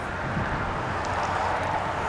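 Steady rush of a fast-flowing stream, with wind rumbling on the microphone.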